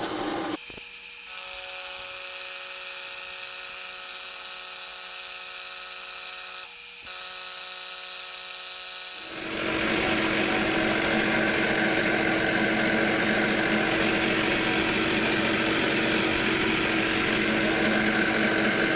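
A metalworking power tool running on steel stock. For the first half there is a steady machine hum with a brief dip about seven seconds in, then from about nine seconds a louder, rougher, steady cutting sound.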